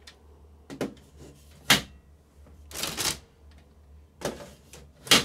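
Plastic drum units of a Brother colour laser printer being slid out of their slots and set down on a table: a handful of plastic clicks, scrapes and knocks, with a longer scrape about three seconds in and a sharp knock just before the end.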